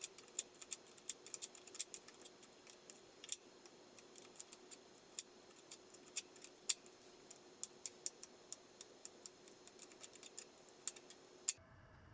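Light, irregular metallic clicking of hand-tool work on a Sur Ron's rear-wheel chain adjuster, being wound all the way in to slacken a too-tight chain. A faint steady hum runs underneath, and everything cuts off suddenly near the end.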